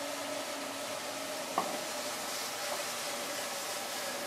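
Steady hissing background noise with a faint steady hum, and one light click about a second and a half in.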